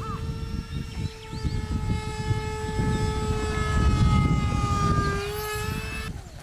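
Radio-controlled scale model jet in flight, its engines giving a steady high whine over a low rumble. The whine dips slightly in pitch about five seconds in as the jet passes, and cuts off suddenly near the end.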